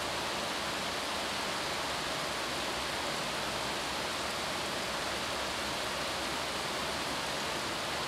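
Steady hiss of background noise, unchanging throughout, with no speech.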